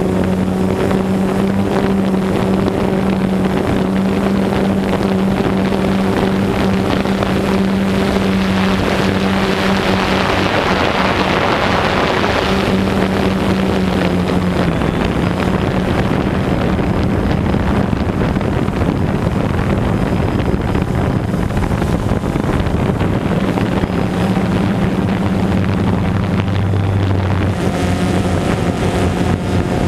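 DJI Phantom 2 quadcopter's motors and propellers buzzing steadily in flight, heard from the camera riding on the drone, with wind rushing over the microphone. The wind noise swells for a few seconds about a third of the way in, and the buzz drops slightly in pitch about halfway.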